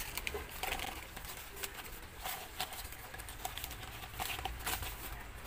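Newspaper rustling and crinkling in uneven crackles as it is folded by hand around a mug to wrap it.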